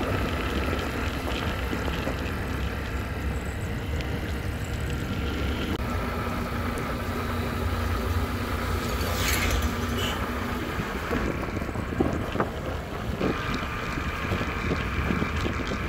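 Motorcycle being ridden along a road at steady speed: a continuous engine hum with road noise.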